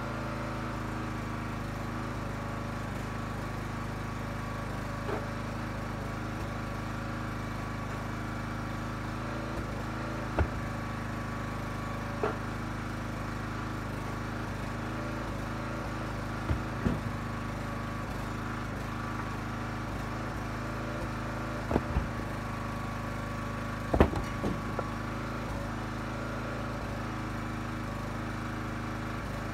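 Huskee 35-ton log splitter's small gas engine running steadily. Every few seconds there is a sharp wooden knock as ash blocks are split and the pieces handled, the loudest about three-quarters of the way through.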